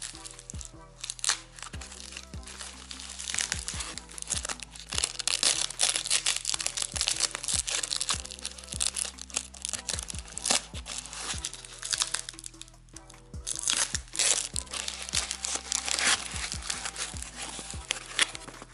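Foam packing wrap and packing tape crinkling and tearing as they are cut open and pulled apart by hand, with many small crackles and clicks, over steady background music.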